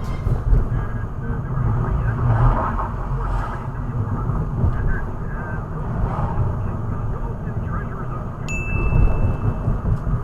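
Steady low road and engine rumble of a car driving, as picked up by a dashcam. Near the end a single high, steady beep sounds for about a second and a half.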